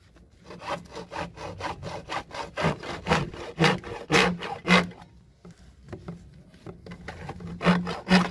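Hacksaw cutting through a 4-inch PVC pipe with back-and-forth strokes. Quick, lighter strokes come first, then louder strokes about two a second, easing off past the middle and picking up again near the end.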